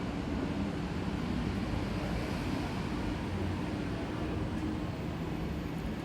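Steady low rumble of city street ambience, with a faint engine-like hum.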